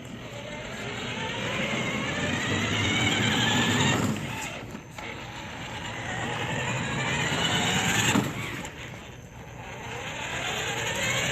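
Electric drive motors of a remote-control cooler loaded with soda cans and ice, whining up in pitch as they speed up. This happens three times: the first two runs cut off suddenly, and the third is still climbing at the end.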